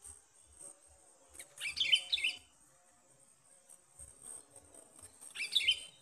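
Sooty-headed bulbul (kutilang) calling twice, each a short phrase of quick bubbly notes about a second long.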